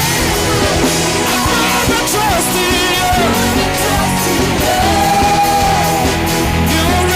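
Live worship band music, with a sung melody over amplified guitars, drums and bass; a long note is held about five seconds in.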